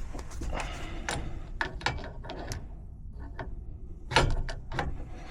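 Irregular clinks and knocks of metal gas fittings and tools being handled while a flexible gas connector is fitted to the pipe, with a sharper knock about four seconds in.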